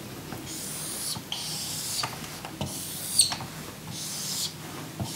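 Whiteboard marker drawing straight lines on a whiteboard: a series of scratchy, squeaky strokes, each under a second long, with sharp taps as the tip meets the board, the loudest about three seconds in.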